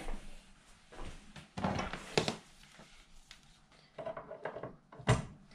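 A stand mixer's power cord being handled: a few faint rustles and light knocks, then a single sharp click near the end as the plug goes into the wall socket.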